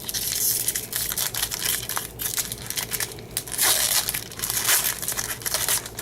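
Foil trading-card pack wrapper being torn open and crinkled by hand, a dense crackle with louder bursts about half a second in and again around four to five seconds in.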